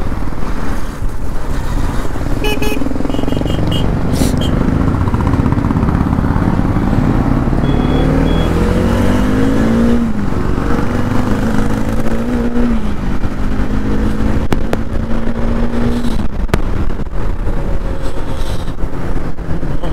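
Bajaj Dominar's single-cylinder engine pulling hard up through the gears: its pitch rises steeply, then drops back at each shift, about three times. Heavy wind rush on the rider's microphone runs underneath.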